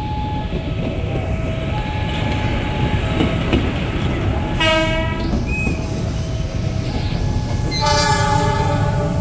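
Indonesian railway train running with a steady low rumble, sounding two short horn blasts, one about five seconds in and a slightly longer one near eight seconds.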